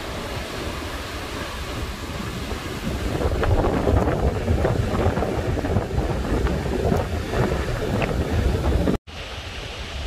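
Wind buffeting the microphone over the steady rushing roar of a tall waterfall across the valley, the gusts growing stronger about three seconds in. Near the end the sound breaks off abruptly and gives way to lighter wind.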